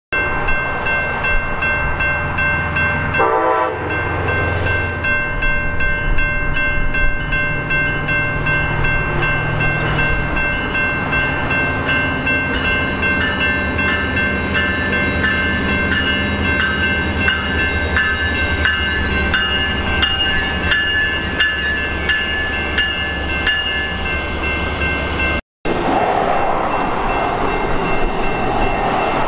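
Amtrak Pacific Surfliner train led by a Siemens Charger diesel-electric locomotive arriving at a station. The engine drones low, with several steady high tones over it and a rhythmic clicking through the middle part. After a short break near the end, the double-deck passenger coaches roll past with a rushing rumble.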